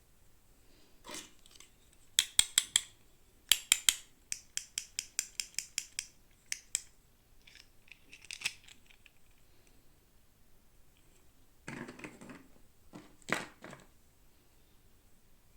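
Sharp plastic clicks and snips from toy packaging being handled and opened, some in quick clusters and one run at about four clicks a second, with a short scratchy rustle near the end.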